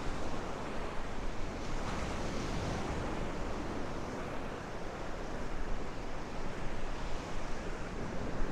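Gulf surf washing onto a sandy beach in a steady, swelling rush, with strong wind rumbling on the microphone.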